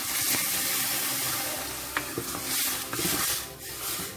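Water poured into a hot pot of potatoes frying in tomato pulp, hissing and sizzling on contact. The hiss is steady for about two seconds and then eases as a plastic spatula stirs, with a few light knocks against the pot.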